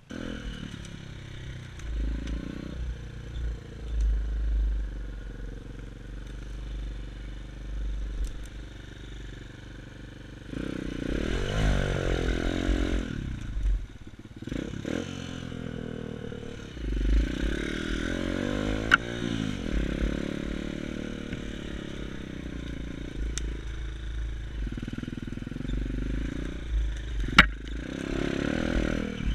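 Xmotos XB33 140cc pit bike's single-cylinder four-stroke engine revving up and dropping back again and again as it is ridden over rough ground, with rattling from the bike. Two sharp knocks stand out, about two-thirds of the way in and near the end, and wind buffets the microphone throughout.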